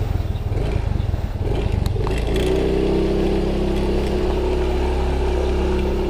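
Yamaha Mio i 125 scooter's single-cylinder engine pulling away: it rises in pitch about two seconds in, then holds a steady note while riding.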